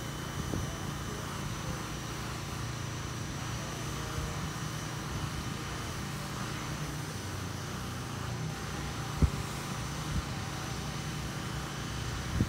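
Distant Airbus A321 jet airliner passing high overhead: a steady low rumble of its engines, with a brief sharp knock about nine seconds in.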